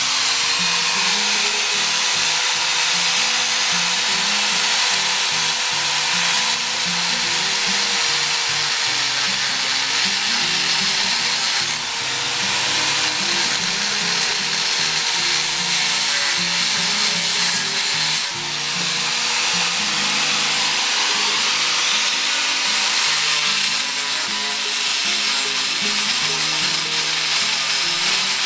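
Electric angle grinder running continuously and grinding on the metal of pruning shears. Its motor pitch and level dip briefly a few times as the disc is pressed into the work.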